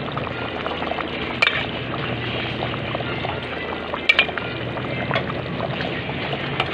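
Tomato sauce with bananas simmering in a pot, a steady bubbling with small pops, and a few sharper clicks.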